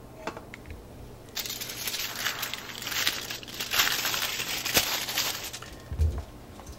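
Aluminium foil crinkling and rustling under a hand for about four seconds, starting a second or so in. A dull low thump near the end.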